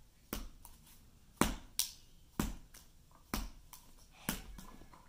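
A ball of putty bounced on a hardwood floor, smacking down sharply about once a second, with a few softer taps in between.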